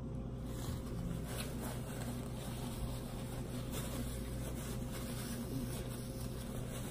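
A steady low hum with several even tones, and a few faint soft rustles as a paper towel is wiped across the mouth.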